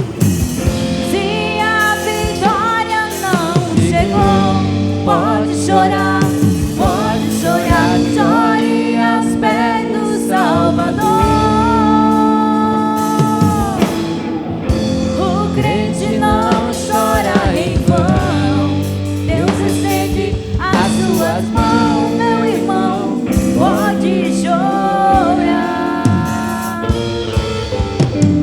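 Live gospel band music, a bending melody line over sustained chords.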